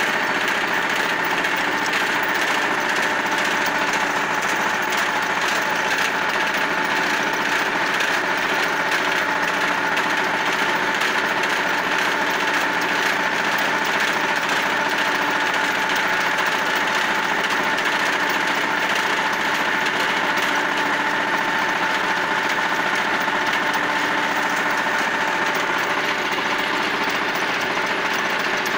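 Shifeng SF350L mini tractor's diesel engine running steadily under load, powering a 1.4 m rotary tiller that churns through the soil. It is a continuous engine drone with a steady high tone on top.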